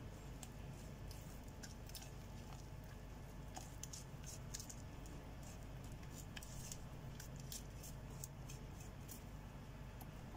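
Spatula stirring thick chocolate batter in a glass bowl: faint squishing with light, irregular clicks as it scrapes the glass, over a faint low hum.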